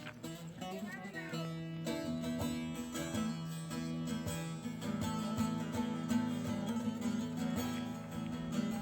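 Background music led by plucked guitar-like strings over a steady low drone.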